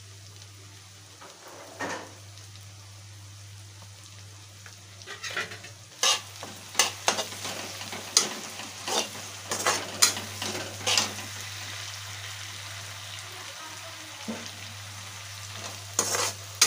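Onion-tomato masala sizzling as it fries in a metal kadai, while a metal spatula scrapes and clanks against the pan as it is stirred and roasted. The scraping strokes come about one a second from about five seconds in, ease off, and pick up again near the end.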